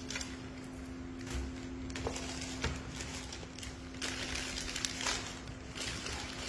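Paper wrapper of a KFC Twister wrap rustling in several spells as it is peeled open by hand, over a steady low hum.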